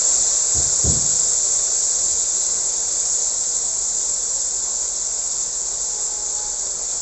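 Ginger-garlic paste frying in an aluminium kadai on a gas flame: a steady high sizzle that slowly dies down after a teaspoon of water was added, because the paste had stuck to the bottom. A single low thud about a second in.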